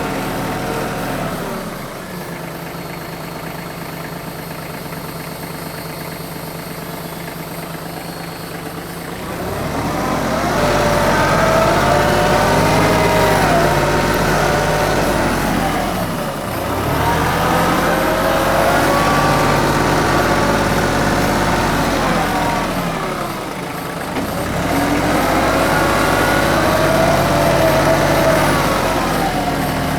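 TYM 2515H compact tractor's diesel engine running steadily at low speed. Then, from about ten seconds in, three times it speeds up and works harder, dropping back briefly between bouts.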